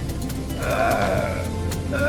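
Background music over a steady low hum. From about half a second in, a held pitched tone bends up and then down for over a second.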